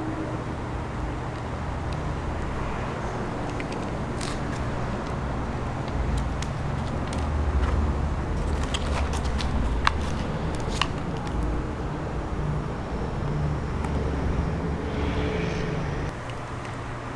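RC car driving, its motor running with a steady low hum that shifts up and down in pitch, with a few sharp clicks. It is heard through a micro FPV camera's built-in microphone.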